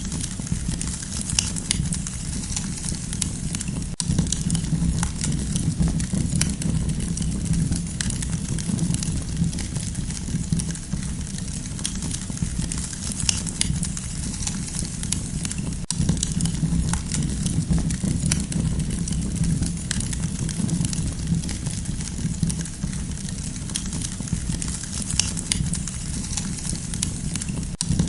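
Campfire burning: scattered sharp crackles and pops from the burning wood over a steady low rumble.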